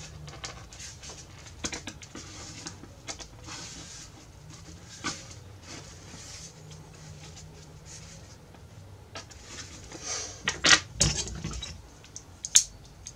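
Short scratchy strokes of hand work on the outer edge of a padauk wood rosette, easing it because it fits too tight. Near the end come a few sharp knocks and clicks.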